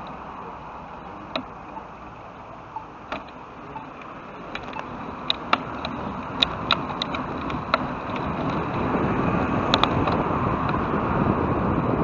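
Wind and road noise on a bicycle-mounted camera, growing steadily louder over the second half as the bike picks up speed, with scattered sharp clicks and rattles from the bike.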